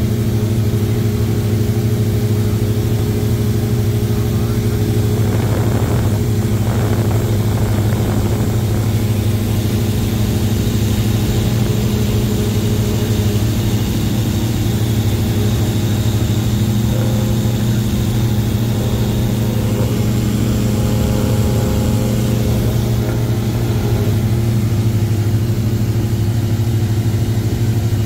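Cessna 172's piston engine and propeller running steadily in level flight, heard inside the cabin as one even low hum.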